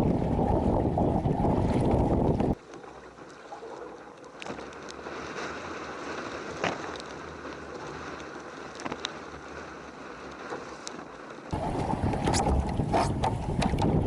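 Strong wind buffeting the microphone on a kayak at sea. It cuts off abruptly about two and a half seconds in and comes back just as abruptly near the end. In between is a quieter hiss of water with small splashes and ticks.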